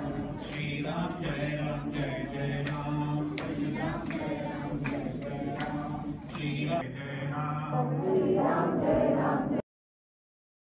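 A group of men and women chanting a devotional song together, with a sharp beat keeping time about once a second. It cuts off suddenly about a second before the end.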